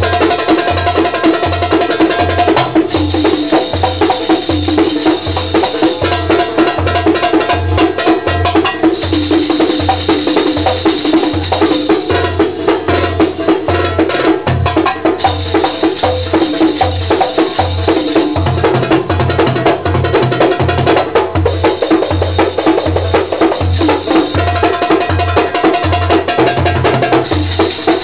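Egyptian music for a tanoura dance: a steady low drumbeat, about two beats a second, with hand percussion and sustained melody lines above it.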